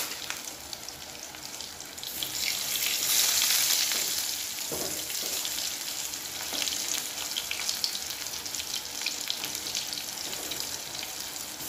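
Tempe slices coated in turmeric spice paste sizzling in hot oil in a frying pan, growing louder about two seconds in. Later a metal spatula scrapes the pan as the slices are turned; they have been left long enough to scorch.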